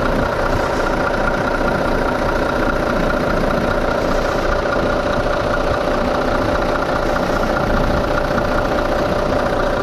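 Iveco Stralis 450's Cursor 10 straight-six diesel idling steadily with its cooling fan turning. The engine has just been restarted after a thermostat replacement and is warming up.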